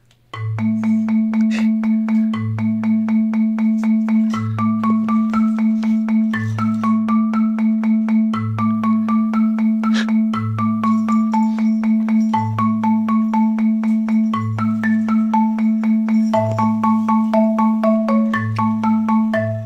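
Background music: a bright melody of short struck notes, like a marimba, over a steady beat and a low bass note that repeats about every two seconds.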